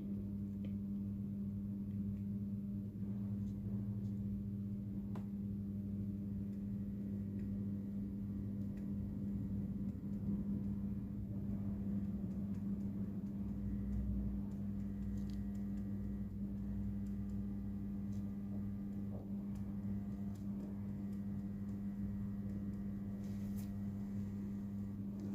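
Steady low electrical hum, with a few faint clicks over it.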